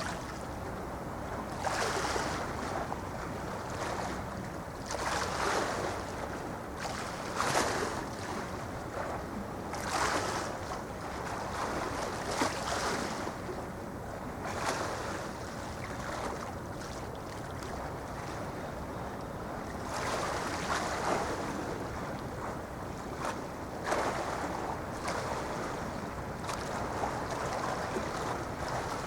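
Sea waves washing in, rising and falling in surges every two to three seconds, over a steady low rumble of wind on the microphone.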